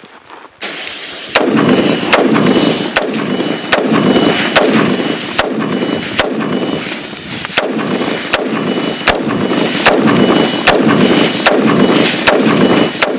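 Compressed air hissing loudly from a hose as it blasts sand over an AR-15, starting under a second in, while the rifle fires a steady string of semi-automatic shots, about one every three-quarters of a second. The rifle keeps cycling through the sand with no stoppages.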